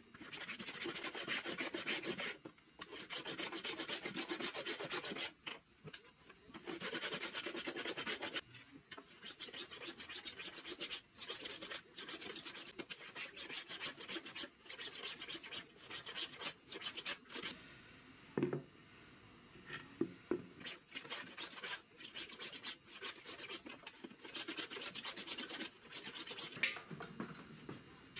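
Hand edge tool shaving a thin walnut rod: repeated scraping strokes along the wood. The first few strokes are long, each about two seconds, and after that they are shorter and quicker.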